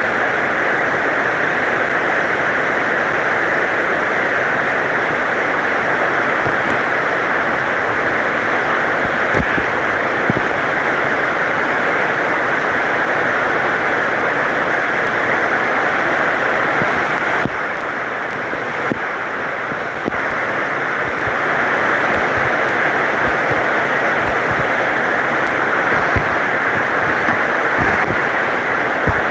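Heavy rain pouring steadily, with a few scattered low knocks of heavier drops. It eases slightly for a couple of seconds just past the middle.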